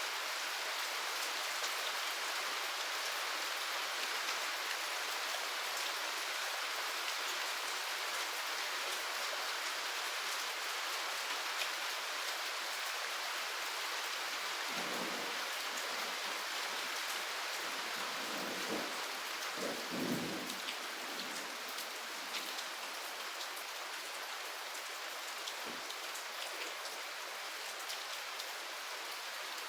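Steady rain falling, with a few rolls of thunder rumbling low about halfway through.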